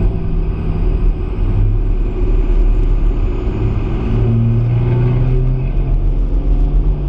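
Pickup truck engine pulling hard on the road, heard from inside the cab as a deep, steady rumble; its pitch steps up about four seconds in.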